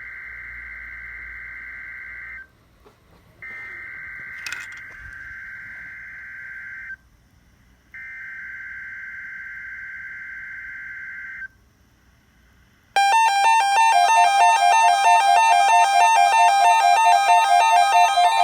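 Emergency Alert System SAME header on NOAA Weather Radio: the end of one burst of buzzy digital data tones, then two more bursts of about three and a half seconds each with a second's gap between them, opening a weekly test. About thirteen seconds in, a much louder electronic melody of repeating stepping beeps begins.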